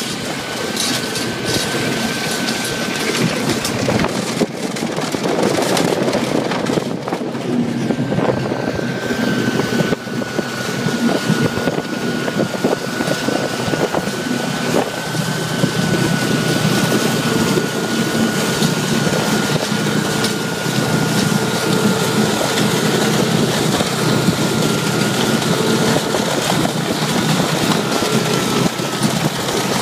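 Snowmobiles running at speed over snow-covered ice, with a steady high whine over a rushing wind noise on the microphone.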